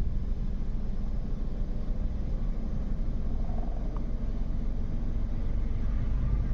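Nissan Micra petrol engine idling steadily with a low, even rumble, running again after its fuel pump assembly was replaced.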